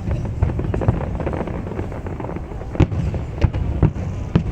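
Fireworks display: a continuous low rumble of distant bursts with frequent sharp bangs and crackles, several louder bangs in the second half.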